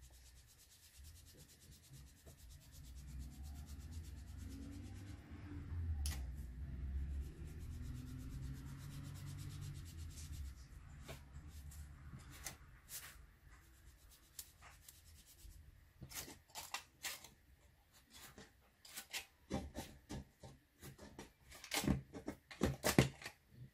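Foam blending sponge rubbed over paper on a cutting mat, a low scuffing; from about halfway, a scatter of short sharp clicks and taps as the sponge is dabbed in the pot of chalk blending ink, thickest near the end.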